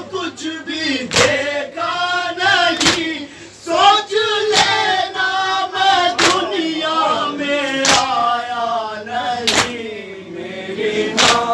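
A group of male voices chanting a noha, a Muharram lament, in chorus, with sharp chest-beating (matam) strikes in unison at a steady beat, about one every second and three-quarters, seven in all.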